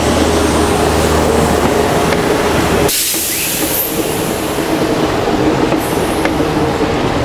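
Vintage Paris Métro subway cars rolling slowly past, with a steady low hum for the first second or so and occasional clicks from the wheels on the track. About three seconds in there is a brief loud hiss.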